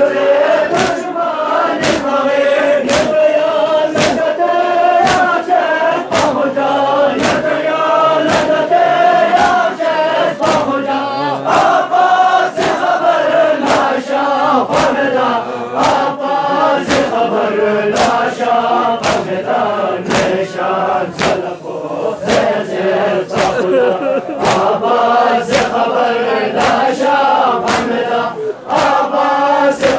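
A crowd of men chanting a mourning lament together, with loud, even strikes about once a second from rhythmic chest-beating (matam) keeping the beat.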